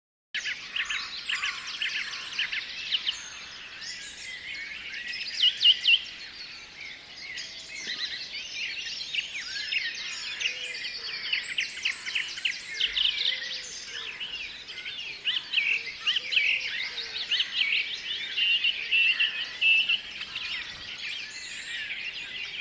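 Many birds chirping and singing at once, a dense chorus of short overlapping calls, sweeps and trills that starts abruptly and carries on without a break.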